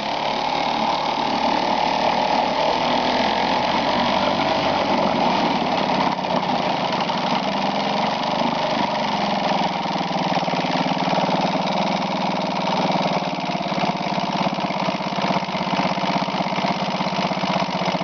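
1978 Johnson 2 hp two-stroke outboard motor running steadily with the throttle opened up.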